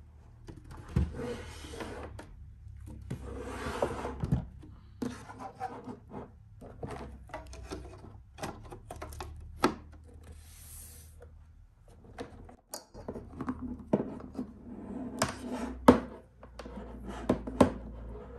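Hands sliding and turning a QNAP TS-453D NAS box on a desk: rubbing and scraping, with many sharp clicks and knocks.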